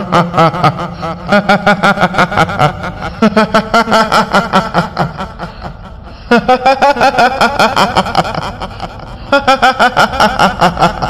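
A woman's high-pitched cackling laugh, the 'hihihi' of a kuntilanak ghost, in rapid pulses repeated in about five bouts with short breaks.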